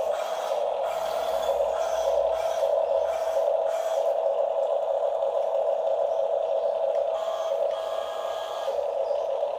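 Steady whine of the small electric motors and gearboxes of radio-controlled Huina construction toys as a tracked bulldozer drives, with a few faint clicks in the first few seconds.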